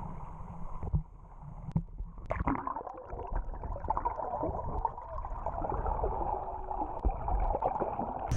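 Sea water sloshing at a boat's hull, then, from about two seconds in, muffled gurgling and a fine continuous crackle as heard through a camera held underwater.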